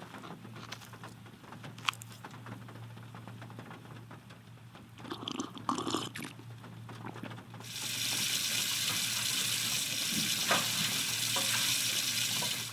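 Soft rain patter with a few sharp clicks, then a brief splashy burst. A little over halfway through, a loud, steady rush of pouring water starts suddenly and lasts about five seconds.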